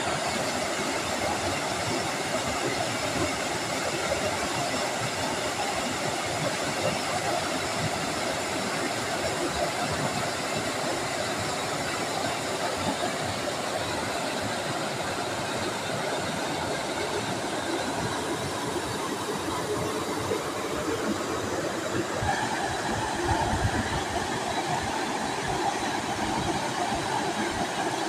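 Waterfall: falling water rushing and splashing in one steady, even wash of noise.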